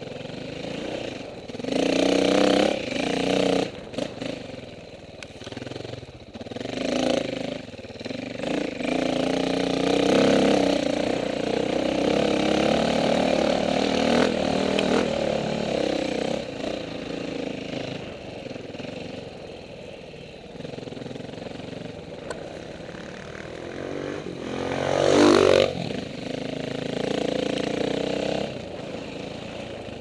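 KTM 450 dirt bike's single-cylinder four-stroke engine revving up and down with the throttle on a trail. Short bursts come first, then a longer stretch under throttle, and a sharp rev that rises and falls about 25 seconds in.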